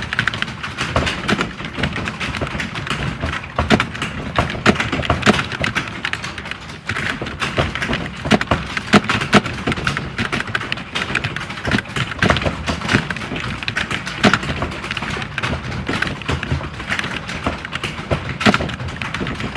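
Computer keyboards being typed on, a dense, continuous clatter of overlapping keystrokes with no pause, like many typists at work at once.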